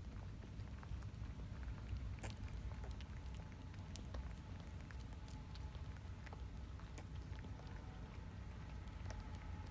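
Faint scattered small clicks and rustling from cats and newborn kittens stirring in a basket, over a low steady rumble.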